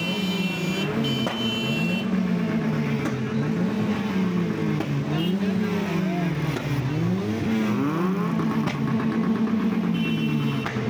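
Several car engines revving hard again and again, their pitch rising and falling over and over and overlapping one another, over a steady held tone.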